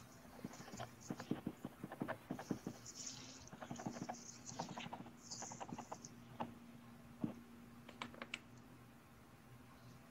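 A quick, irregular run of light taps and clicks that thins out after about six seconds to a few isolated ones, over a faint steady hum.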